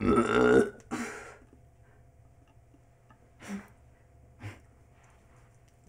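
A person burps loudly, lasting about a second and a half. Then it is quiet apart from two faint short sounds.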